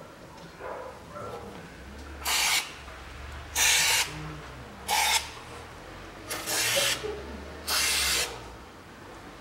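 Aerosol can of silicone lubricant sprayed in five short hissing bursts of about half a second each, coating the empty bearing bore of a steering knuckle before a new front hub bearing is pressed in.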